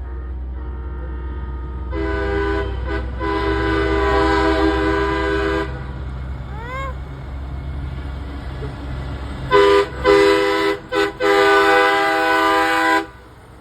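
Semi truck's multi-note air horn blowing over the low rumble of the idling diesel: one long blast, then a few short toots running into a second long blast that cuts off sharply near the end.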